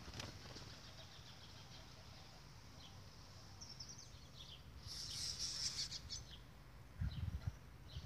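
Small birds chirping and fluttering as they fly down to a backyard water trough, with a dense flurry of chirps and wingbeats about five seconds in. A few low thumps come near the end.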